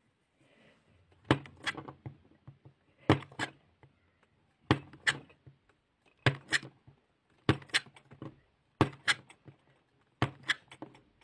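Wavy crinkle-cutter blade pushed through a scored blue block, each cut giving a sharp crunchy double crack. About seven cuts come at an even pace, one every second and a half or so.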